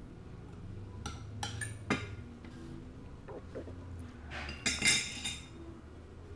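Hard tableware being handled: a few sharp knocks about a second in, then a quick run of ringing clinks around five seconds in, like shells and dishes knocking on a plate and glass bowl.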